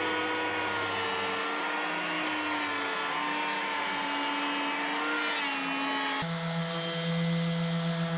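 An engine running steadily, its pitch wavering slightly. About six seconds in it changes abruptly to a steadier, deeper drone.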